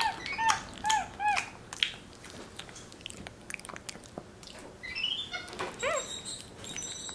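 Capuchin monkey giving short, high chirps that rise and fall in pitch, about four in quick succession in the first second and a half, then a rising call and a few more chirps near the end. Clicky chewing and lip-smacking sounds from it eating mushy banana run underneath.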